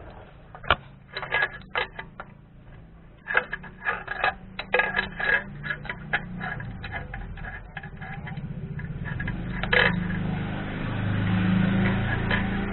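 Irregular metallic clicks and clatters of hand tools working on a car engine during a spark plug change. From about halfway a steady low mechanical hum comes in and grows louder.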